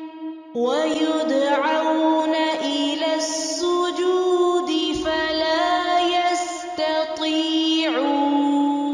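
A solo voice reciting the Quran in slow, melodic tajweed chant. After a short break it comes back in about half a second in, sliding up into long held notes that bend and waver in pitch.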